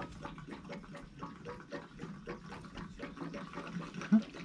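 Fuel glugging and gurgling as it pours from a plastic jerry can through a flexible spout into a Bobcat T64 skid steer's fuel tank, with one brief knock near the end.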